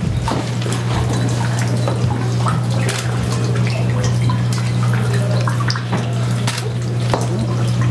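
A steady low hum under scattered light clicks and clinks.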